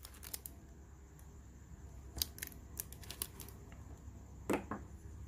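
Scattered small clicks and taps of objects being handled, with a slightly heavier knock about four and a half seconds in, over a low steady hum.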